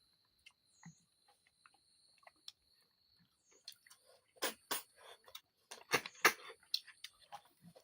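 Snails being eaten from their shells: scattered short wet clicks and smacks of sucking and chewing, with a few louder sharp ones past the middle.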